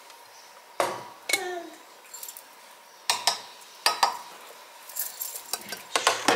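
Sharp metal clinks and knocks as the lid of a tin canister is lifted off and handled and a copper Turkish coffee pot is set into a Turkish coffee machine. One knock rings briefly, like a loose metal lid.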